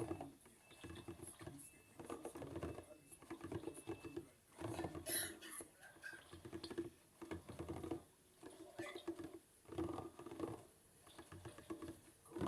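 Maytag washing machine washing on its delicate cycle: a rhythmic swish of water and laundry about once a second, each stroke carrying a short motor hum.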